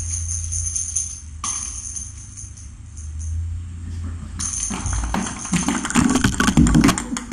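Jingling of a cat toy being played with, then close rustling and knocking as a cat brushes against the camera, loudest a couple of seconds before the end.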